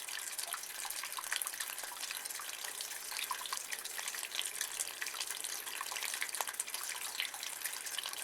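Water running and dripping in a rain gutter: a steady high splashing hiss full of small irregular drips and patters.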